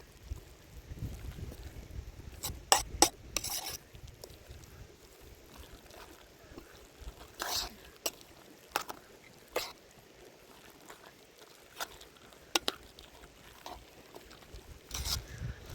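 Cooking utensils and cookware being handled: scattered clicks, taps and scrapes, some close together, over a faint background.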